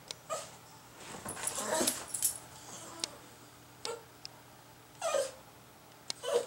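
Norwich Terrier whining in short, high cries every second or so. The loudest, about five seconds in, falls in pitch. She is begging for the cat's food.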